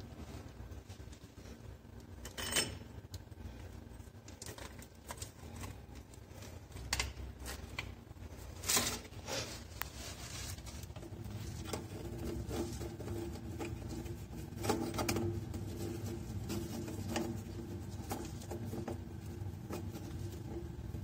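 Scattered clicks and knocks of plastic sink drain parts being handled and fitted together, the loudest about two and a half seconds in, near the middle and about two-thirds through, over a low steady hum.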